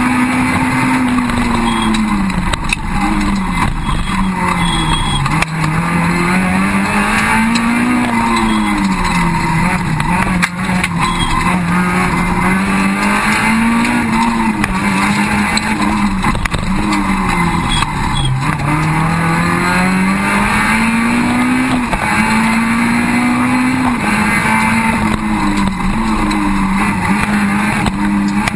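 In-cabin sound of a Peugeot 306 Group A rally car driven flat out on a special stage: the engine's pitch climbs and drops again and again as it is worked through the gears and braked for corners, over a loud, constant rush of road and mechanical noise.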